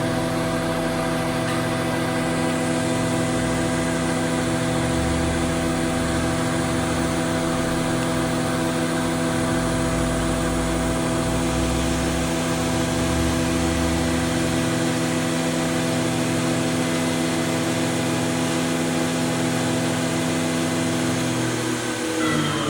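Martin T 54 surface planer running steadily at speed, its 5.5 kW motor and four-knife Tersa cutterhead giving a steady multi-tone hum and whine. Near the end the pitch starts to fall as the machine begins to run down.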